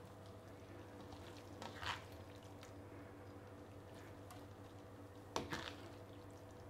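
Faint squishing and scraping of braised white cabbage being scooped from a stainless steel pan with a perforated spatula, with a soft scrape about two seconds in and a sharper click of the spatula against the pan about five and a half seconds in, over a steady low hum.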